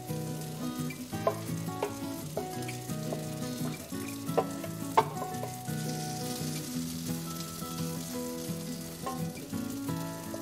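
Garlic and vegan burger mixture frying in oil in a pan while being stirred, with a few sharp clicks of the utensil against the pan. The sizzle grows louder about halfway through. Soft background music plays underneath.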